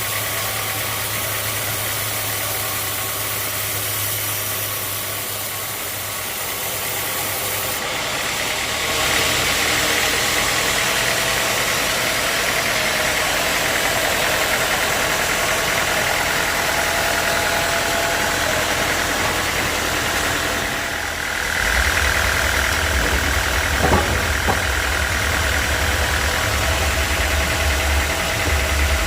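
Sawmill machinery running steadily, its sound shifting about eight seconds in and again past twenty seconds, when a deep hum sets in. There is one sharp knock a little later.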